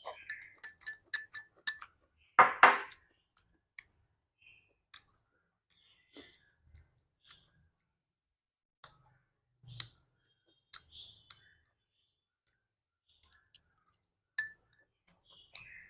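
Eating utensils clinking and tapping against a ceramic bowl: a quick run of ringing clinks at first, with a louder scraping burst about two and a half seconds in. After that come scattered small clicks and one more ringing clink near the end.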